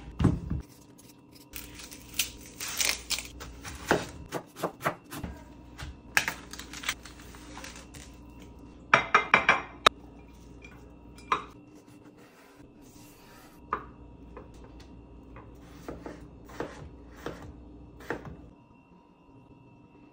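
Kitchen prep clatter on a countertop: scattered sharp knocks and clinks of a bamboo cutting board, glass food containers and utensils being handled. The loudest are a knock right at the start and a quick run of several sharp knocks about nine seconds in.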